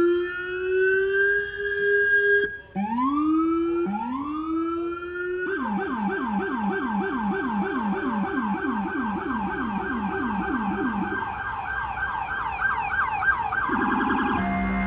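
Emergency siren on an FDNY Chevrolet Silverado 2500HD battalion chief's pickup: three rising wails, then a fast yelp sweeping up and down about four times a second, which turns quicker near the end.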